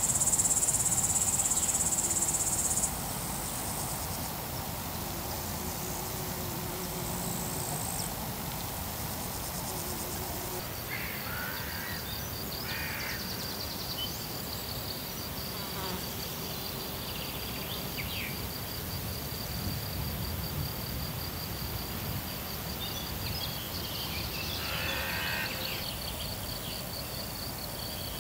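Summer meadow ambience: insects chirping in a steady, fast-pulsing high trill, with a few short bird calls over it. A louder high hiss opens the clip and stops abruptly about three seconds in.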